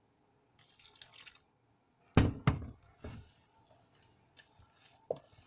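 Water poured from a jug into a stainless steel bowl of mashed potato mixture, a soft splashing hiss lasting about a second. A little after two seconds in come two sharp knocks, the loudest sounds, followed by quieter scraping as a wooden spatula works the mixture in the metal bowl.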